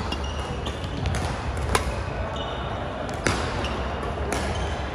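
Badminton rally: rackets striking the shuttlecock in sharp cracks, four clear hits about a second apart, with short squeaks of shoes on the court floor and steady background noise of a large sports hall.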